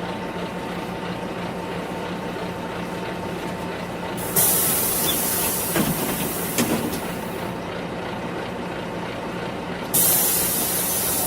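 City bus interior: a steady engine hum, broken about four seconds in by a sudden loud hiss of air from the bus's pneumatic system that dies away over a few seconds, with a second hiss starting near the end.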